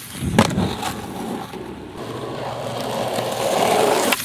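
Skateboard landing with a sharp clack about half a second in, then its wheels rolling over asphalt, the rolling noise growing louder toward the end.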